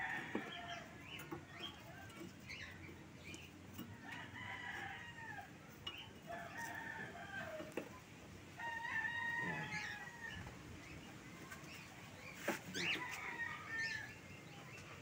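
Chickens calling: a rooster crowing and hens clucking, several calls one after another, with one long crow held about a second around the middle.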